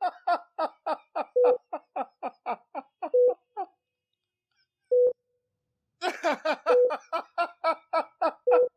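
A man laughing in quick repeated bursts, breaking off for about two seconds midway, then starting again. A hospital patient monitor beeps steadily at one pitch about every second and three quarters.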